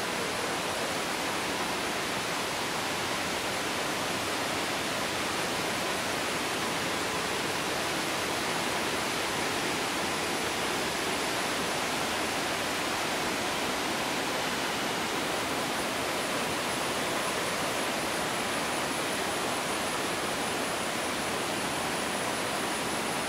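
Flood-swollen river rushing over rocks in rapids: steady, unbroken white-water noise.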